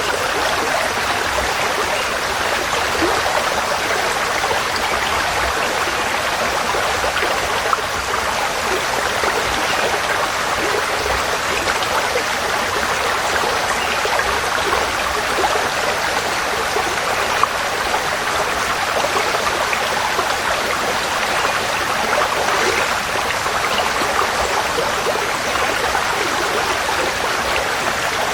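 Forest stream flowing, a steady even rush of running water with no change in level.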